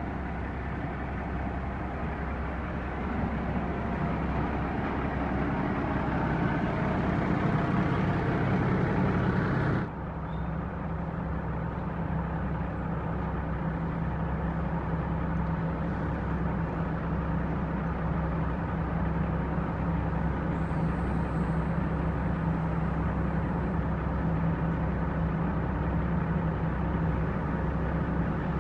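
A heavy dump truck's diesel engine running steadily under way. About ten seconds in, the sound changes abruptly: the higher hiss drops away and a lower, even drone carries on.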